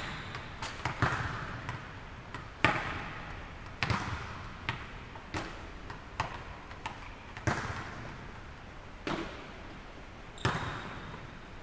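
Volleyballs being hit and bouncing on a hardwood gym floor: irregular sharp smacks about once a second, each trailing off in the echo of a large hall.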